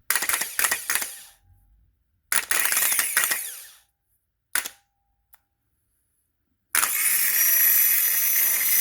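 New starter motor for a 2007–2011 Honda CR-V bench-tested on a battery. It is energised in two bursts of about a second and a half that spin up and wind down, then a short burst and a click. About seven seconds in it is held on, running up to a steady high whine. The new starter spins strongly, with a lot of power.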